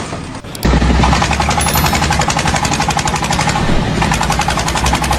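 A machine starts up about half a second in and runs with a loud, rapid, continuous hammering rattle over a deep rumble.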